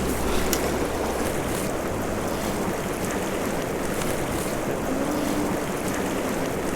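Fast creek water rushing steadily: a mountain stream running high and swift with spring runoff.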